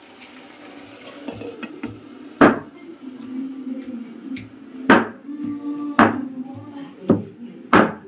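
Pieces of mutton being pounded on a stone sil: four heavy blows, one to two and a half seconds apart, over soft background music.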